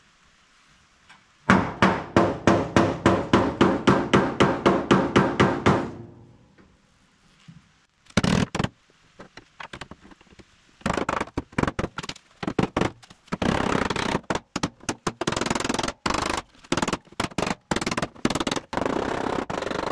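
Hammer blows on the steel of a 1979 Ford F250's dented front passenger-side body panel, working the dent out. A quick, even run of about four strikes a second with the panel ringing, then after a pause a single blow and faster, irregular hammering.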